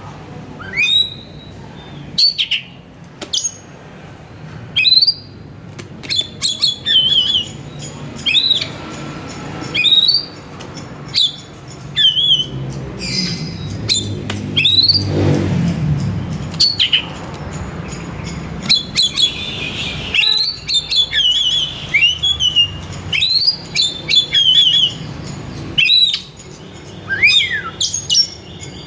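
Oriental magpie-robin (kacer) singing: loud, sharp whistled chirps about once a second, some strung together into quick runs of notes, over a low steady hum.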